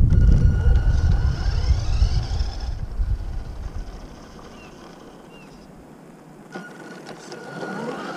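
Radio-controlled car driving off across rough asphalt, with a loud low rumble as it pulls away close by. Its motor whine rises in pitch as it speeds off and fades, and the whine rises again near the end as the car comes back.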